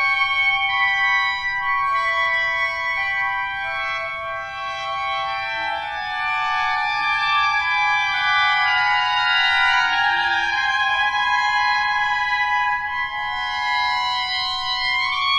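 Clarinet ensemble holding long, overlapping high notes that shift pitch one by one, building dense, slowly changing chords.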